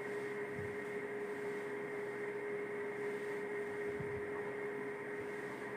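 Steady electrical hum, one unchanging tone over an even hiss.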